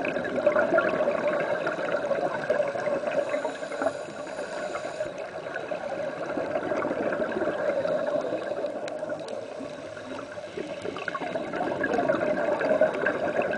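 Underwater bubbling and gurgling from a scuba diver's regulator as the diver breathes, swelling and easing slowly with each breath, about every six seconds.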